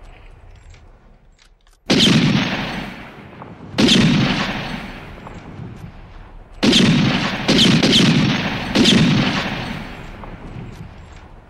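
Heckler & Koch PSG 1 sniper rifle firing in a film sound effect: five shots, the first two about two seconds apart, then three in quicker succession. Each trails off in a long, rolling echo.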